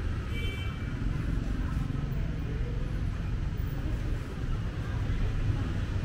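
Street traffic: motor vehicles running past in a steady, low rumble.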